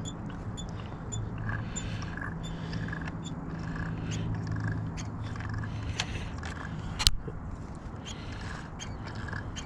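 Primer bulb on an Echo PB250 handheld blower's two-stroke carburettor being pressed over and over, with soft squishing pushes roughly every half second to a second as fuel is drawn through, over a steady low hum. A single sharp click comes about seven seconds in.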